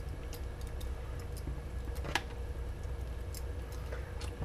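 Scattered light clicks and ticks from a small hand tool working the screws at the base of an airsoft AEG's pistol grip while the motor is being taken out, one click sharper about two seconds in, over a steady low hum.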